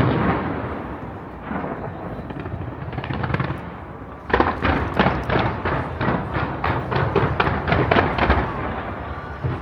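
Aerial fireworks bursting: one loud bang at the start that trails off in a rumble, then a quick run of sharp bangs, about three a second, from about four seconds in until near the end.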